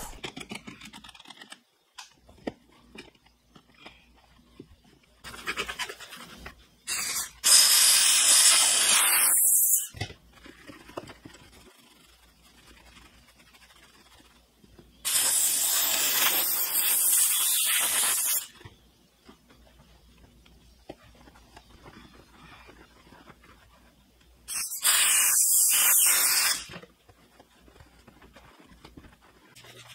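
Handheld steam cleaner letting out three bursts of hissing steam, each two to three seconds long and cutting in and out sharply, with quieter scrubbing of a soft detail brush on plastic trim between them.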